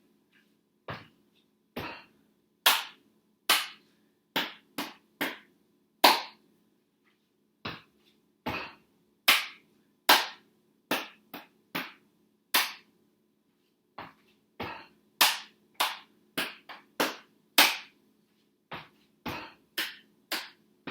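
Body percussion played slowly and repeated: two stomps, two claps, three thigh slaps and a clap, the group of eight coming round about every six and a half seconds. The claps are the loudest hits.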